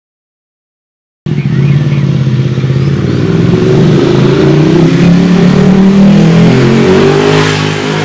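Ducati 1199 Panigale's 1198 cc Superquadro V-twin, breathing through a Termignoni exhaust, running with its wet clutch, with no dry-clutch rattle. The sound cuts in suddenly about a second in and runs loud and steady.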